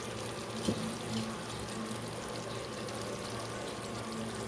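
Chicken curry simmering in a pan: a steady bubbling hiss, with a faint click under a second in.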